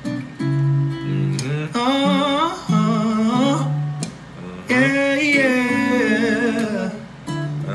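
Live acoustic band music: several acoustic guitars strumming under a male lead vocal, which sings two long phrases with wavering held notes.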